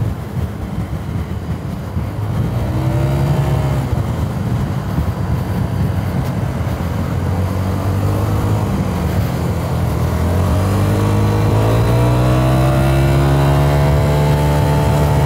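Italjet Dragster 125 scooter's single-cylinder engine running under way. The engine note dips briefly partway through, then rises and holds high as the scooter accelerates near the end.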